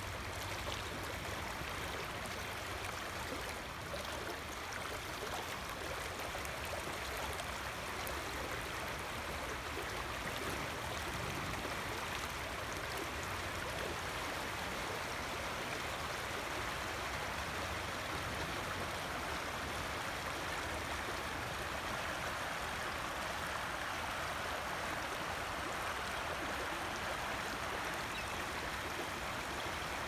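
Shallow river running fast over a rocky riffle: a steady rush of moving water.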